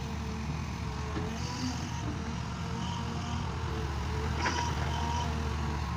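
Farm tractor engine running steadily, working a field, with a few squeaky metallic tones and a short click about four and a half seconds in.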